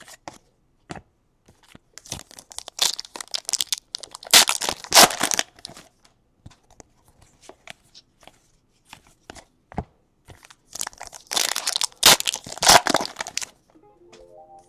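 Trading cards being slid and flipped by hand, their glossy card stock scraping against each other in two rustling spells, with light clicks between.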